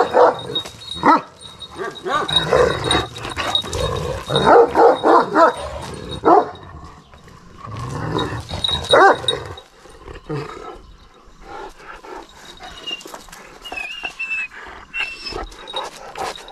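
Kangal dog barking and whining in short bouts, loudest in the first six seconds and again about eight to nine seconds in, then quieter.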